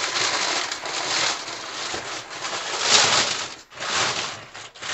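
Sheets of white packing paper crinkling and rustling as they are pulled back by hand, loudest about three seconds in, with a short lull just after.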